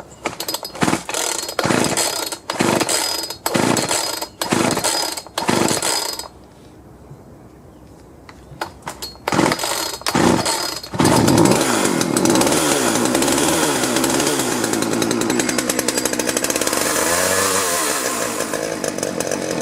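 Two-stroke Craftsman chainsaw being pull-started with the choke out, after its carburetor was cleaned and its fuel lines and primer bulb were replaced. About seven quick rope pulls come in a row, then a pause, then three more; about eleven seconds in the engine catches and runs steadily, then cuts off sharply at the end.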